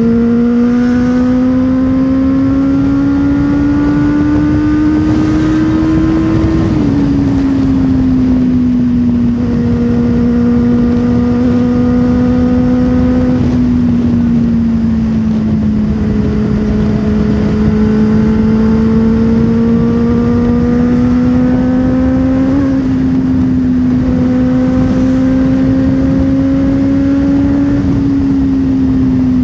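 Benelli TNT 600i's inline-four engine pulling hard at highway speed, its steady note climbing slowly in long pulls and falling back about seven seconds in and again near the end. Wind rushes over the helmet-camera microphone beneath it.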